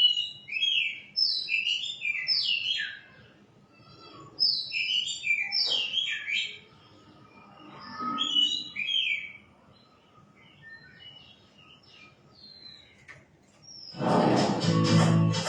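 Shama singing in bursts of rich, whistled phrases with quick gliding notes, three loud runs and then fainter notes. About a second before the end, acoustic guitar music starts loudly.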